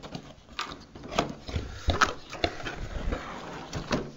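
Cardboard box being opened by hand: an irregular string of sharp taps, knocks and scrapes with rustling as the end flap is worked loose.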